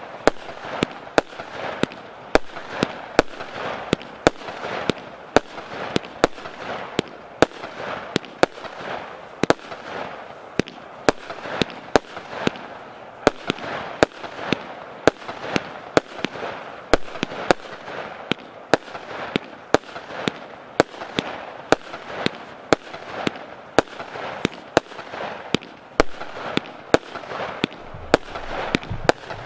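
Piromax PXB3719 Proton, a 49-shot, 28 mm consumer firework battery (cake), firing its shots in a steady string of sharp bangs, about two a second. A continuous hiss fills the gaps between them.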